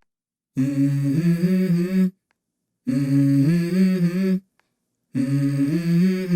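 Background music: a song's intro of hummed vocal phrases, three of them about a second and a half long with short silences between.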